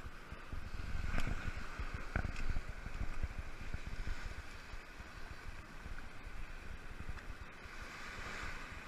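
Wind buffeting the microphone of a head-mounted GoPro over the wash of small surf on the beach, with a few faint knocks in the first seconds.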